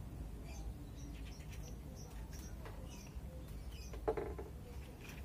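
Lit gas-stove burners giving a steady low rumble under scattered light ticks and taps of a pot being handled. A short ringing note comes about four seconds in.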